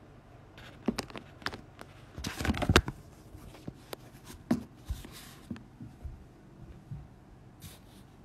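Handling noise from a phone: a scatter of small clicks and taps with short rustling scrapes, loudest in a cluster of knocks about two and a half seconds in.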